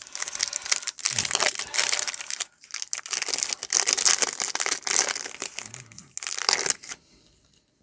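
Foil wrapper of a 2020 Topps Chrome baseball card pack crinkling as it is torn open and handled, in dense bursts with a brief pause about two and a half seconds in, stopping about seven seconds in.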